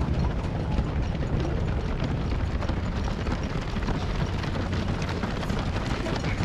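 Footfalls of a large field of marathon runners passing on the road, a dense continuous patter, over a steady low rumble.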